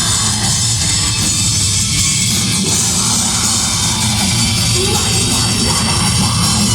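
Live heavy metal band playing loud: distorted guitars and a drum kit, recorded close to the stage and heavily distorted.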